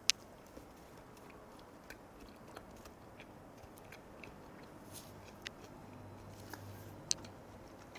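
A person chewing a piece of jeon (Korean pancake) close to the microphone, with faint scattered ticks. Two sharp clicks stand out, one at the very start and one about seven seconds in.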